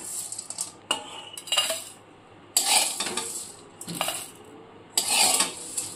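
A metal spatula scrapes and clinks against a kadai, pushing out dry-roasted whole spices. The spices then rattle as they are tipped onto a steel plate. There are a few sharp clinks and short scraping bursts.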